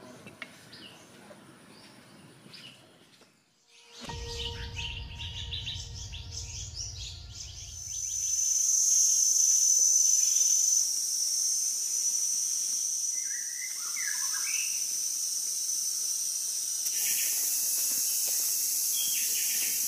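Forest ambience: insects droning steadily at a high pitch, with scattered bird chirps and calls. A low rumble runs under chirping for a few seconds before the insect drone sets in, about eight seconds in.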